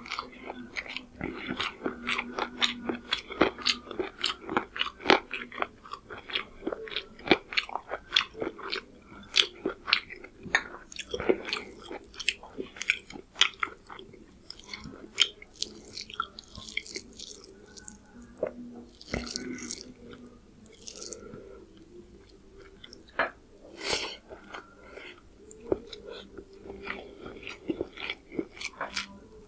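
Close-miked chewing and wet mouth sounds of a person eating chicken curry with pulao rice: rapid sharp smacks and clicks that thin out about halfway through, then pick up again near the end.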